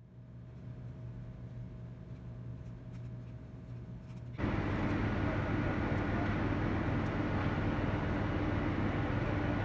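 A steady low room hum, then about four seconds in a sudden cut to much louder airport ramp noise: an even rumble and hiss with a faint steady high whine from machinery running nearby.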